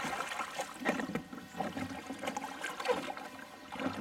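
Water splashing and sloshing around a kayak as a swimmer hauls himself onto its stern and shifts his weight, with irregular small splashes and knocks.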